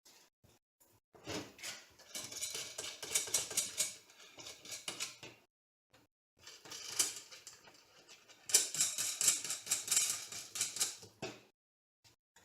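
Rapid clicking and clinking of small metal hardware as a 3D printer kit frame is being screwed together, in two long stretches with a short break about six seconds in.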